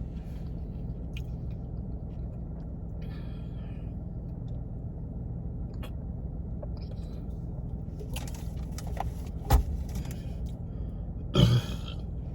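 Steady low hum of a car engine idling, heard from inside the cabin. Soft rustling and handling noises come now and then, with a short knock past the middle and a brief louder sound near the end.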